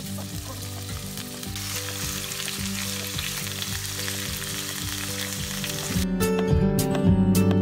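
Pork cubes sizzling in hot oil in a pot, the sizzle swelling a second or two in as the meat settles, with a spatula moving the pieces about. About six seconds in, the sizzle gives way to louder background music with a steady beat.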